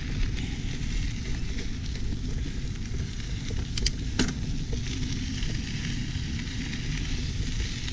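Mountain bike tyres rolling over a dirt and gravel trail, a steady crunching hiss, with a couple of sharp clicks or rattles from the bike about four seconds in.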